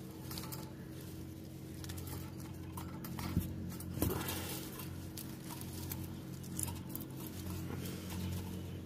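Light scratching and clicking as lovebirds shuffle on the wire floor and sides of a small cage, with two sharper knocks about three and a half and four seconds in, over a steady low hum.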